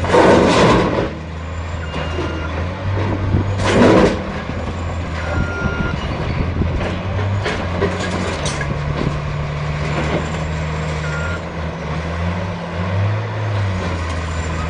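A heavy vehicle's engine running with a steady low drone, with a loud noisy burst at the start and another about four seconds in, and a few short high beeps scattered through.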